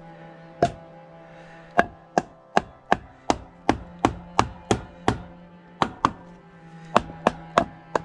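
Hammer blows on wooden framing: runs of sharp strikes, about three a second, with short pauses between the runs, over a faint steady drone.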